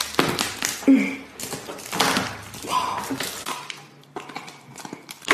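Close-miked cracks, knocks and taps of a cooked lobster's shell being handled and broken open, in a quick irregular run of sharp clicks that thins out after about three seconds.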